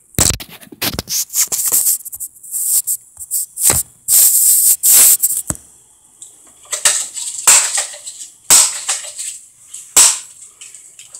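Irregular sharp clicks, knocks and rattles, some in quick runs, with a longer rattling, hissing stretch about four seconds in.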